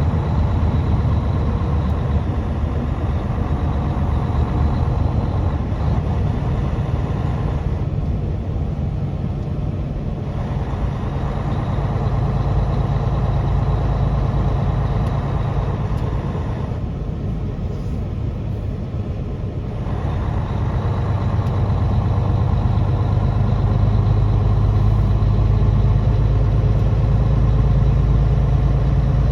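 Truck's diesel engine running steadily under way, a low drone. The higher noise drops away briefly twice, and the engine pulls louder again in the last third.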